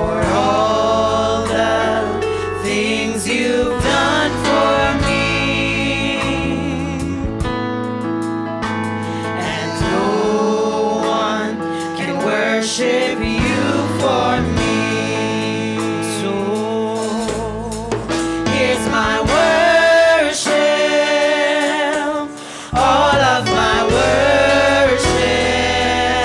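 Gospel worship song sung by a group of women's voices into microphones over live band accompaniment with sustained bass notes. The music drops away briefly a little past three-quarters of the way through, then comes back.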